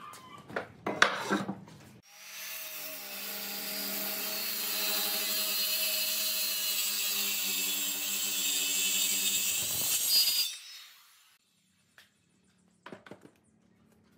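A few short scraping strokes, then a handheld circular saw runs and cuts into a rough wooden slab for about eight seconds. The saw stops and winds down about ten and a half seconds in, and a few light knocks follow.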